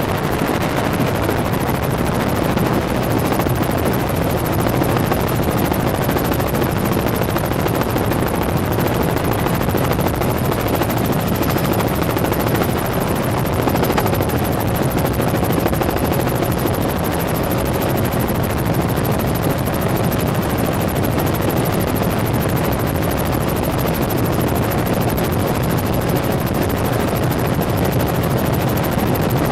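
Helicopter in flight, running with a loud, steady drone that holds the same level throughout, with a faint steady tone above it.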